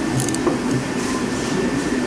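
Steady workshop background noise with a few short metallic clicks from a hand tool tightening the air-intake hose clamp, grouped together just after the start.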